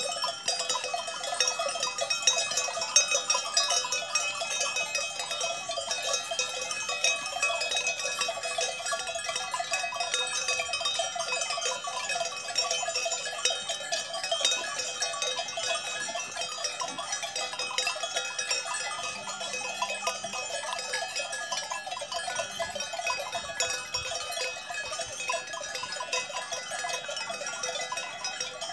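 Many cowbells on grazing cattle clanking continuously and irregularly, a dense overlapping jangle of metallic tones.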